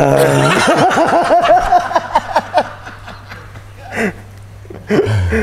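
Hearty laughter: a quick run of about eight rising-and-falling 'ha' syllables for about two and a half seconds, then a couple of short laughs near the end.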